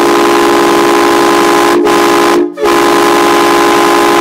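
Aftermarket train horns on a Nissan Maxima, fed by a 3-gallon air tank and a 200 psi compressor, blasting a very loud, steady chord of several tones. The blast breaks off briefly about two and a half seconds in, then sounds again.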